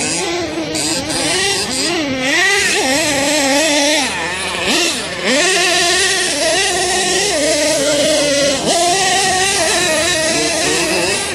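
Radio-controlled monster truck's small two-stroke model engine revving up and down as it is driven. It backs off briefly about four seconds in.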